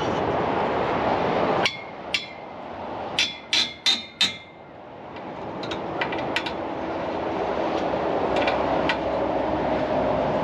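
A run of about six sharp metallic knocks with a brief ring, like hammer strikes on metal rack or trailer parts, between about two and four seconds in. A few lighter clicks follow over a steady background noise that returns gradually.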